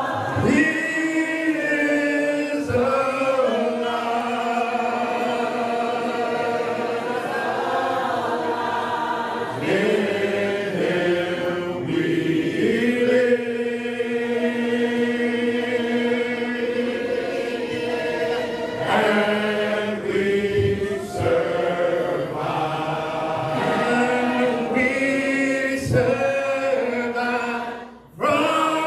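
Church congregation singing a hymn a cappella, many voices holding long notes together, led by a man's voice through a microphone. The singing drops off briefly near the end between phrases.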